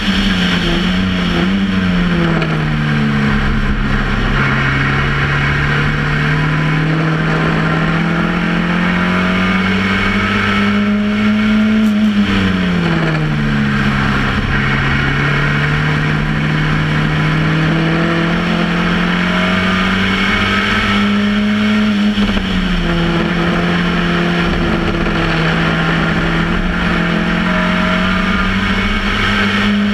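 Formula Ford 1600 race car's Ford Kent four-cylinder engine heard from on board at racing speed, over the rush of wind and road noise. Its pitch drops sharply three times, about a second, twelve seconds and twenty-two seconds in, and climbs slowly between the drops as the car pulls through the gears.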